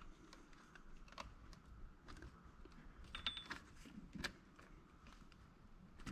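Faint, scattered small metallic clicks and taps as a kick-start return spring and gear are wound by hand on the engine case, with the loudest tap about four seconds in.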